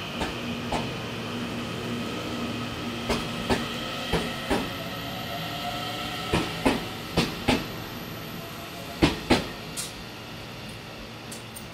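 Taiwan Railway EMU900 electric train pulling out of the station. Its wheels click over a rail joint in pairs, each pair coming a little quicker as it picks up speed, over a steady whine. After the last pair, about nine seconds in, the sound fades as the end of the train goes by.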